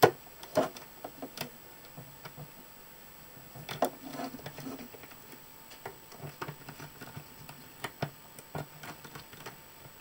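Irregular small clicks and taps of a small screwdriver and wire ends being worked into a circuit board's screw terminal block as the lamp wires are fastened.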